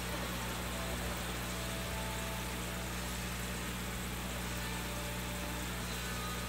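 Aquarium air pump humming steadily, with a constant hiss of bubbling aeration in the fry tub.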